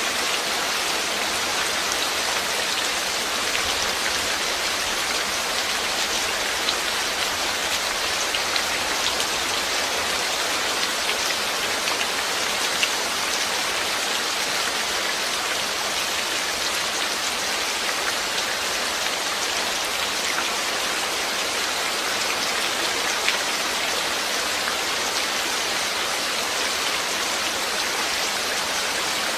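Steady rain falling on a surface, an even hiss with the ticks of individual drops.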